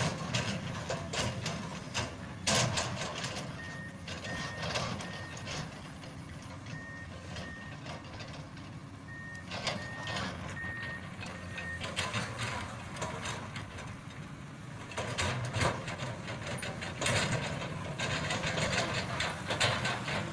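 Komatsu PC200 hydraulic excavator's diesel engine running under load as it works soil, with repeated knocks and scrapes. From about 3.5 to 12 seconds in, a reversing alarm beeps at one steady pitch, about two beeps a second in broken runs.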